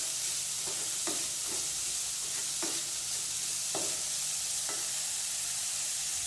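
Chopped onion, beans and carrot sizzling in hot oil in a pan while being stirred, with a short scrape of the stirring utensil against the pan about once a second over a steady frying hiss.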